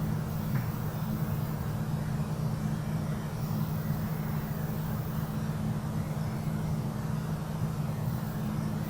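A cat purring steadily as a low, even rumble.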